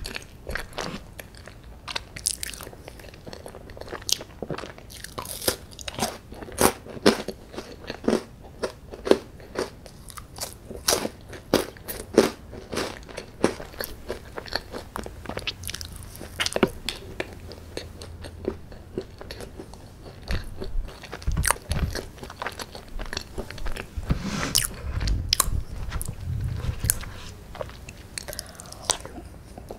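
Close-miked eating: crisp crunching bites and chewing of a chocolate-coated wafer bar and chocolate brownie, between spoonfuls of chocolate ice cream. The crunches come thick and fast in the first half and thin out later, with a few low thumps.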